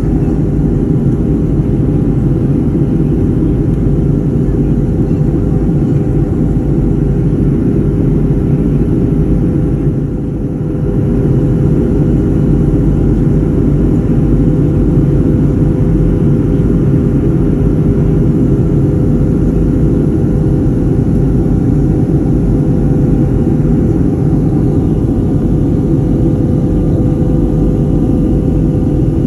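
Steady drone of a Southwest Airlines Boeing 737 heard from inside the cabin: jet engine and airflow noise with a few constant tones over a low rumble, dipping briefly about ten seconds in.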